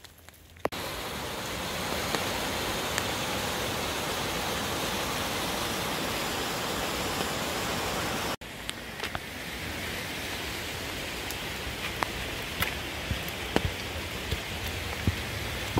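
Steady hiss of rain falling on the forest, with scattered light ticks and knocks in the later part.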